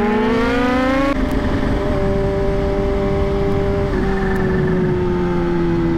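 Kawasaki Z H2's supercharged inline-four motorcycle engine pulling hard under acceleration, its pitch rising, then an upshift about a second in drops the revs and the engine runs steadily, easing slightly lower, as the bike holds speed.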